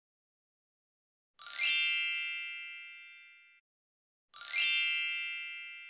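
Two identical bright chime sound effects about three seconds apart. Each is a quick sparkling shimmer sweeping down into a ringing ding that fades away over about two seconds.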